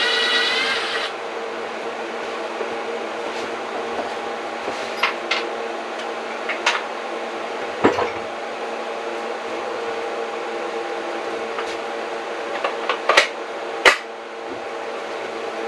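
A power tool whines and stops about a second in, from the work of trimming back the boards around a window opening. After that a steady hum carries on under scattered knocks and clicks of wood and tools, the loudest a pair of sharp knocks near the end.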